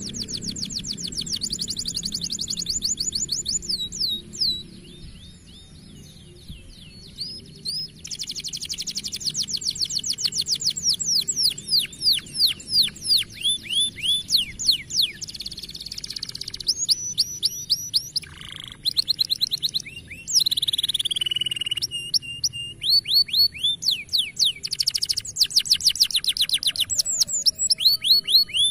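Domestic canary singing a long, varied song: rapid runs of repeated downward-sweeping notes and trills, a quieter stretch about five to eight seconds in, and a held whistle about twenty-one seconds in.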